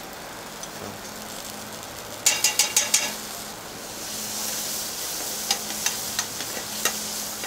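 Radishes and butter sizzling in a hot skillet, with a metal utensil clicking and scraping against the pan as they are stirred, a quick run of clinks about two to three seconds in. The sizzle grows louder about halfway through.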